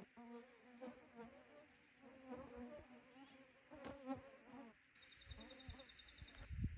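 Mosquitoes buzzing close by, a faint wavering hum that comes and goes for the first four and a half seconds. About five seconds in, a short, rapid high-pitched trill.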